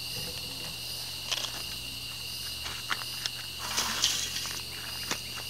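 Camera being handled and repositioned: several sharp clicks and knocks and a short rustle of movement about four seconds in. Behind it, evening insects chirr steadily at a high pitch.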